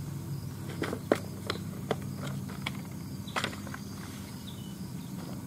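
Scattered light clicks and taps, about seven in the first three and a half seconds, from the angler handling tackle or bait gear at a bankside chair, over a steady low hum.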